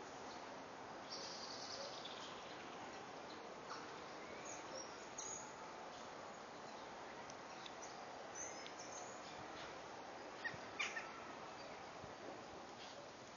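Faint outdoor ambience of steady background noise with scattered bird calls. Two short, sharp calls about ten and a half seconds in stand out as the loudest sounds.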